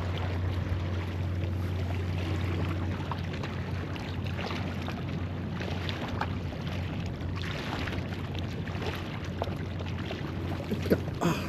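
Outdoor breakwater ambience: a steady low drone under wind noise on the microphone, with a few faint clicks and one sharp knock near the end.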